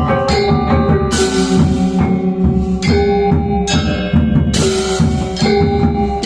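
Balinese gong kebyar gamelan playing a Tabuh Pisan piece: bronze metallophones ringing on interlocking pitched notes over dense drumming. Two bright crashes come in, about a second in and again past four and a half seconds.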